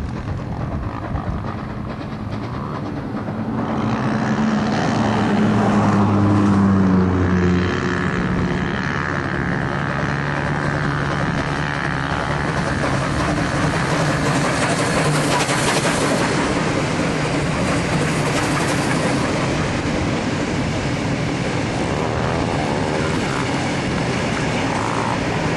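Two Queensland Railways BB18¼ class 4-6-2 steam locomotives double-heading a passenger train, passing under steam. The sound grows loud over the first few seconds, is loudest about six to seven seconds in, and then settles into the steady rolling noise of the carriages going by.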